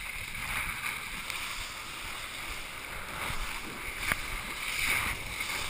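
Steady rush of water and wind as a kitesurf board skims across the sea, heard through a chest-mounted GoPro, with one sharp knock about four seconds in.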